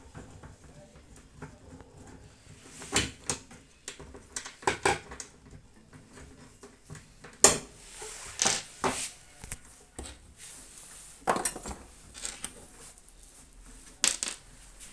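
Metal clinks and clatters of tools and sheet-metal parts being handled while a microwave oven is dismantled: a string of separate sharp knocks at irregular intervals, the loudest about halfway through.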